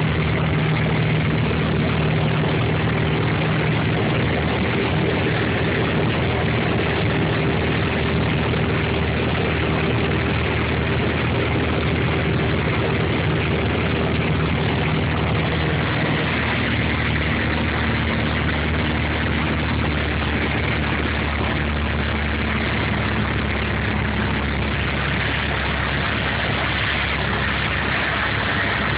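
Piper PA-28's single piston engine and propeller droning steadily in cruise, heard from inside the cockpit with airflow noise over the cabin. About halfway through the engine note shifts to a different pitch.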